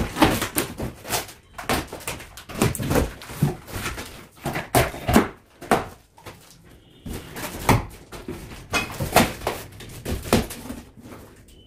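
Cardboard box being opened by hand: packing tape ripped off and the flaps pulled open. It comes as a run of irregular ripping and scraping noises, with short pauses.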